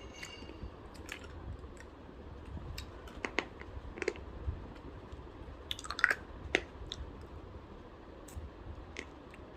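Mouth sounds of a person sucking a hard jawbreaker candy, with scattered small clicks as the candy knocks against the teeth.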